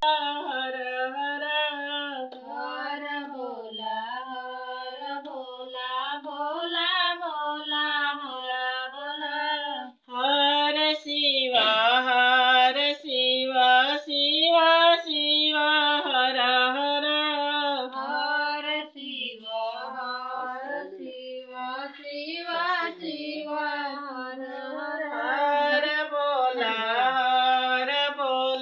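A woman's voice singing a Shiva devotional song (bhajan) in long, wavering held notes, with a brief break about ten seconds in.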